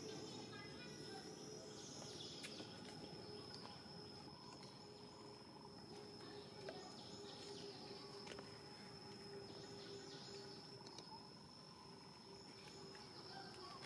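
Faint outdoor ambience: a steady high-pitched insect drone over a low steady hum, with a few faint clicks.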